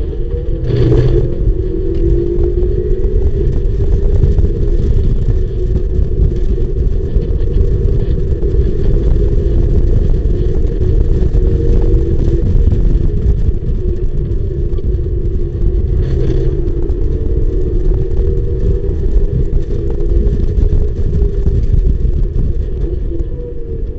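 Mazda MX-5 race car's four-cylinder engine accelerating hard through the gears, heard from the open cockpit with heavy wind rumble on the microphone. The engine note eases near the end as the driver lifts off.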